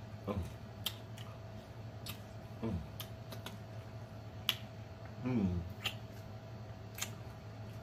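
Close-miked eating sounds of a man chewing a taco: sharp wet mouth smacks about once a second, with three short falling 'mm' hums of enjoyment, and finger-licking smacks near the end.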